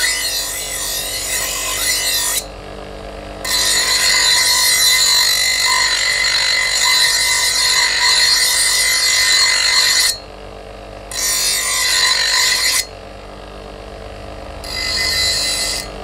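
Bench grinder grinding a steel cleaver blade forged from an old file: a harsh, hissing grind while the blade is pressed to the spinning wheel. It breaks off three times when the blade is lifted away, leaving the grinder's motor hum, then resumes.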